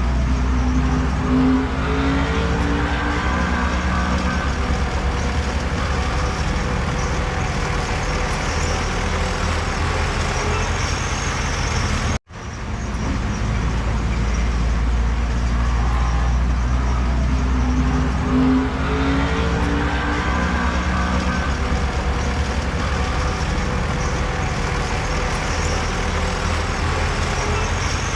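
Heavy diesel engine of earthmoving machinery running, a deep steady rumble whose pitch rises and falls. The sound drops out for an instant about twelve seconds in, then carries on.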